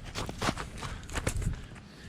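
Hiking footsteps on a steep, icy trail: a run of short, irregular crunching steps.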